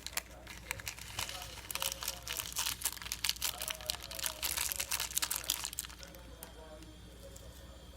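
Dense crinkling and crackling of something being handled, such as plastic packaging or paper, that stops about six seconds in, with faint voices underneath.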